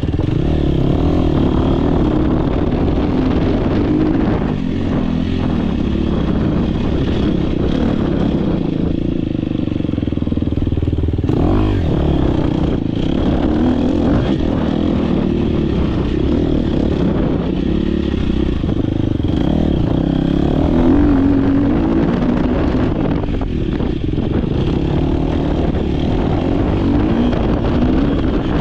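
Dirt bike engine running hard under a race pace, its note rising and falling as the throttle opens and closes and easing off briefly a few times.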